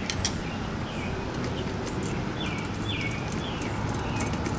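A bird calling with short, downward-sliding chirps, repeated about half a dozen times, over a steady low background and a few faint clicks of small hand-tool work.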